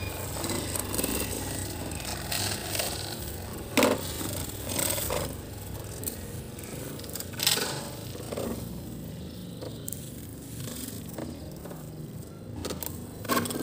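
Toy trucks and excavators being handled and pushed about: a few separate knocks and scrapes over a low steady rumble.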